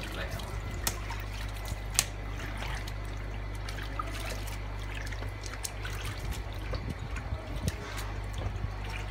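Water trickling and splashing in a plastic basin as horseshoe crab pieces are rinsed by hand and lifted out dripping. Scattered sharp clicks, the loudest about two seconds in.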